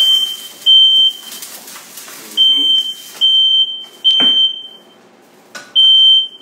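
Household smoke detector going off in a series of loud, high beeps, about six in all, each half a second to a second long with uneven gaps, set off by smoke from olive oil overheating in a frying pan.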